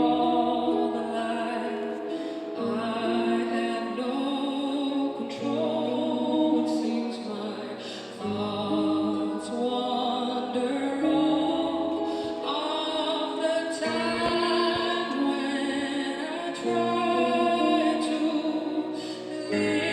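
Music: a woman singing a slow pop ballad live, with instrumental accompaniment.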